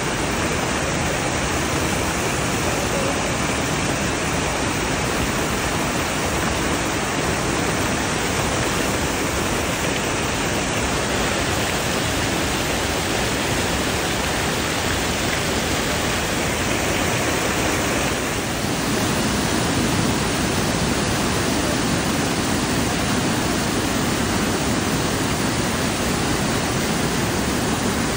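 Water pouring over a low stone weir in a stream, a steady loud rushing splash. About two-thirds through it dips briefly and comes back fuller and deeper.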